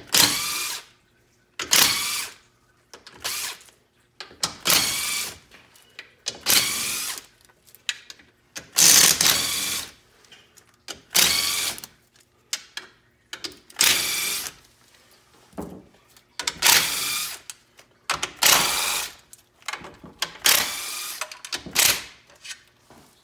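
Cordless drill spinning the oil pan bolts out of a 4L60E automatic transmission, one bolt at a time, in repeated runs of about a second with short pauses between, about a dozen runs in all.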